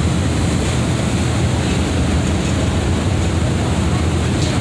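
Steady noise of a ferry under way heard from its stern: a low engine rumble mixed with the churning wake and wind buffeting the microphone.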